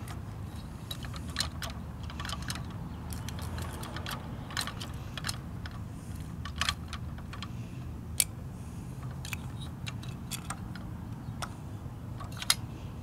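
Small, sharp clicks and taps of toy parts being handled: a miniature plastic wheeled trash cart lifted, tipped into a 1:34 diecast model's Curotto-Can container and set back down, the loudest clicks about eight and twelve and a half seconds in. A steady low hum runs underneath.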